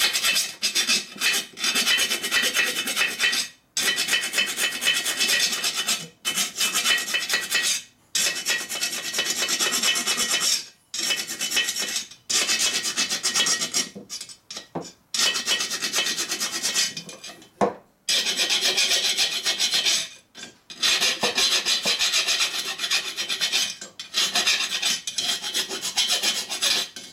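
A metal file rasping over the cast-iron cooling fins of a 1942 Harley-Davidson XA cylinder, in runs of strokes one to three seconds long with short pauses between. It is taking down the sharp casting edges along the parting line.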